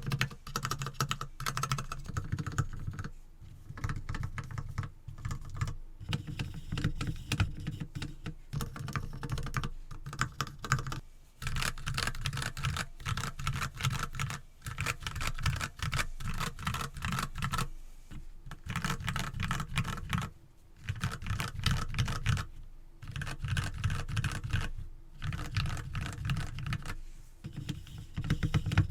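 Typing on a mechanical keyboard with Gateron Milky Yellow linear switches and PBT keycaps: a fast, continuous stream of clacky keystrokes in runs, broken by a few brief pauses.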